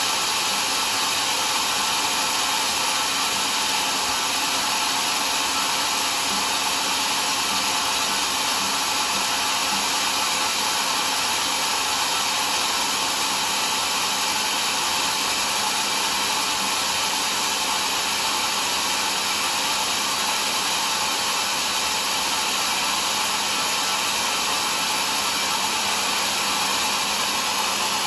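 Homemade sawmill running steadily, a continuous even whirring at constant level.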